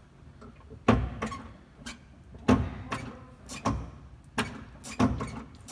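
A run of sharp, irregular knocks and clicks, roughly one or two a second, as the clutch pedal is pumped to bleed air out of the car's hydraulic clutch.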